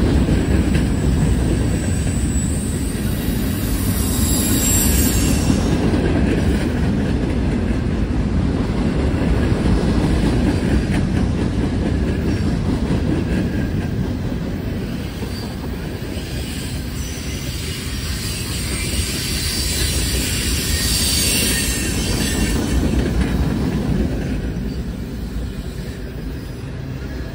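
Train cars rolling past on the rails, a steady rumble and clatter of wheels. High-pitched wheel squeal rises twice, near the start and again past the middle, and the sound eases off slightly toward the end.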